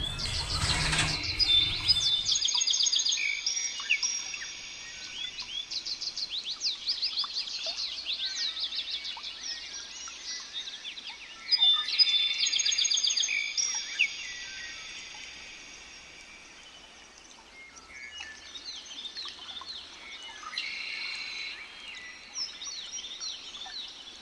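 Several songbirds singing and chirping in a dense chorus of quick high trills and chirps, loudest in two spells a few seconds in and about halfway through. A brief burst of low rumbling noise comes in the first two seconds.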